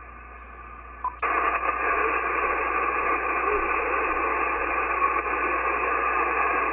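Amateur radio transceiver's speaker giving out steady HF band static and hiss between transmissions, with the sound cut off above the voice passband. About a second in, the static jumps suddenly from faint to loud and stays there.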